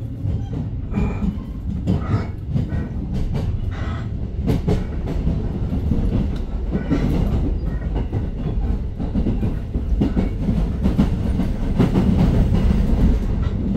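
A moving vehicle's steady low rumble, with irregular rattling clicks and knocks.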